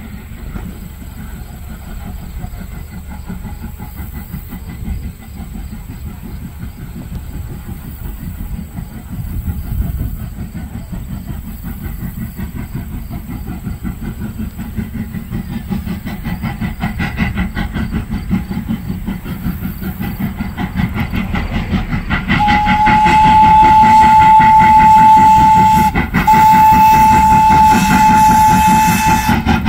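Steam locomotive working a passenger train: rapid, even exhaust chuffs with the rumble and clatter of wheels on rail, growing louder as it approaches. About 22 seconds in its steam whistle sounds a steady high tone in two long blasts and a shorter one, the signal for a road crossing.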